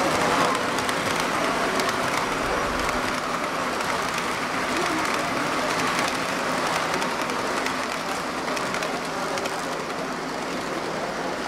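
Steady background noise of a busy exhibition hall, with H0-scale model trains running on the layout and faint scattered clicking.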